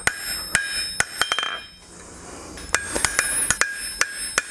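Blacksmith's hand hammer striking steel on an anvil, each blow ringing with a bright metallic tone as the forged handle is shaped. A run of irregular blows, a pause of about a second near the middle, then another run.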